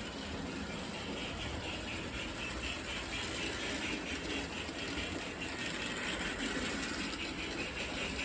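Electric O-gauge toy train running steadily on its track: a continuous motor hum with the fluttering clatter of wheels on rails.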